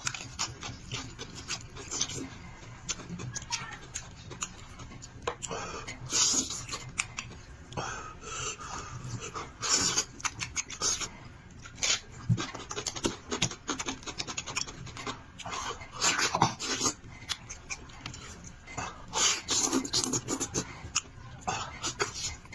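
Close-miked eating: chewing and gnawing meat off a cooked sheep's head, an irregular run of mouth smacks and clicks.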